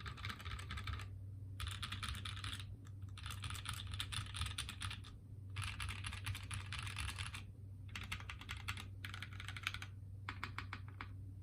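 Typing on a custom 60% HHKB-layout mechanical keyboard with lubed, filmed Cow switches on a nylon half plate and GMK keycaps: runs of rapid keystroke clicks in bursts of one to two seconds with short pauses between. A steady low hum runs underneath.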